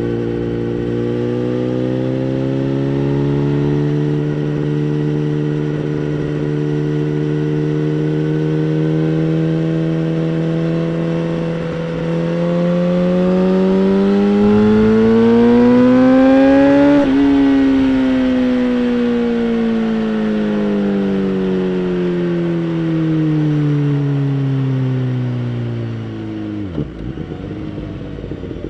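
2011 BMW S1000RR's inline-four engine running through a Bodis aftermarket exhaust. It holds steady revs, then climbs in pitch over several seconds to a peak and falls away gradually as the bike rolls off. The note is briefly interrupted near the end.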